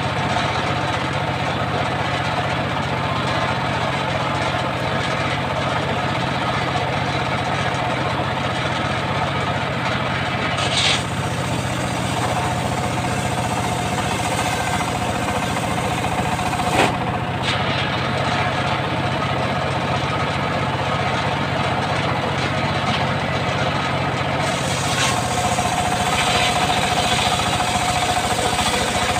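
Engine of a homemade circular sawmill running steadily while its large blade saws a mahogany log, with a steady whine that strengthens about twelve seconds in and again near the end. Two short sharp knocks, one about eleven seconds in and a louder one past the middle.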